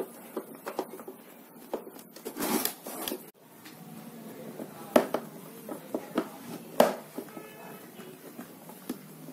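Handling noise from a screwdriver and hands on a Birla mixer grinder's plastic base as its screws are taken out: scattered clicks and knocks with a short scrape, the two loudest knocks about five and seven seconds in.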